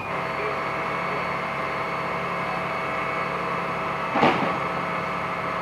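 Fire engine running steadily with a constant engine hum. A short, louder sound breaks in about four seconds in.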